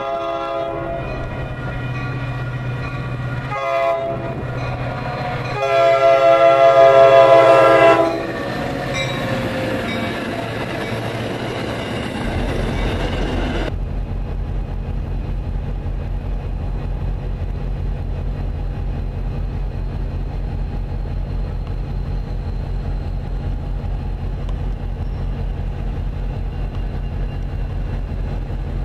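A diesel commuter locomotive's multi-note air horn sounds: one blast ends about a second in, a short blast follows, then a long, loud blast that trails away, the end of a grade-crossing horn signal. From about twelve seconds in, a steady low diesel rumble of an approaching train takes over.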